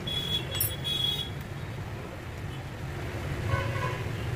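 Road traffic: a steady low rumble of passing vehicles, with a short horn toot about three and a half seconds in.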